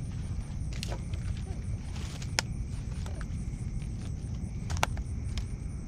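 Night insects chirping steadily over a low rumble, with a few sharp clicks and knocks as a landed blue catfish is picked up and handled on the bank.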